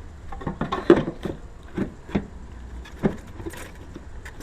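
Irregular light clicks and knocks of hard plastic being handled as a tail light's wiring harness is tucked in and the light assembly is fitted into place.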